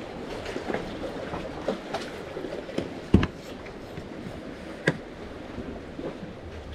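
Seawater washing and sloshing among concrete breakwater tetrapods, with scattered clicks and a sharp knock about three seconds in and another near five seconds.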